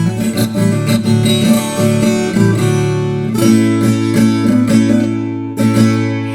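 Instrumental break in a sertanejo raiz song: acoustic guitars plucked and strummed, with no singing.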